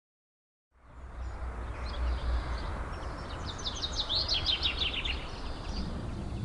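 Silence, then a steady low rumble and hiss fade in under a second in. In the middle a bird sings a quick run of repeated notes that drop in pitch.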